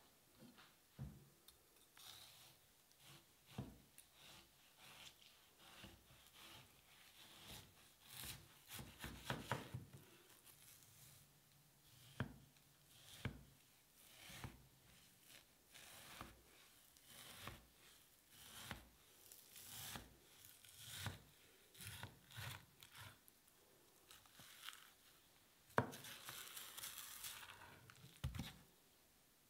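Kitchen knife slicing through a raw tuna loin on a plastic cutting board: quiet, soft tearing and rubbing strokes as the blade draws through the flesh, with hands handling the fish between cuts. There is a sharper tap near the end.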